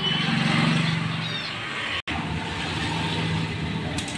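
A motor vehicle engine running steadily in the background, with a short chirp about a second in and a brief break in the sound about two seconds in.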